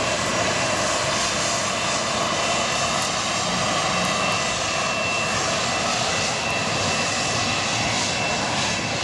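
Fokker 100 jet airliner's twin Rolls-Royce Tay turbofans running at taxi power as it rolls past: a steady rushing jet noise with a thin high whine on top.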